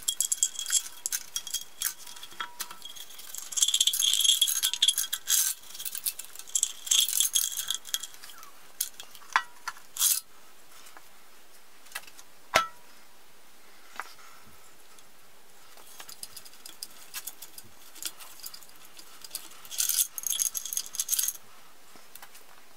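Metal parts clinking and rattling as a Saab T7 aluminium cylinder head is handled and set down onto the engine block. A ringing clatter fills roughly the first third, a few separate sharp clicks come around the middle, and another short burst of clatter comes near the end.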